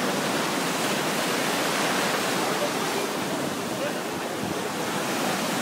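Ocean surf breaking and washing through shallow water, a steady rushing noise.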